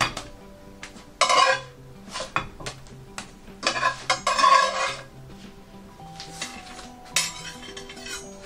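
A slotted spatula scraping and tapping against a nonstick frying pan as a folded crepe is worked loose and lifted out. There are three scraping strokes, the middle one the longest, with sharp clinks between them.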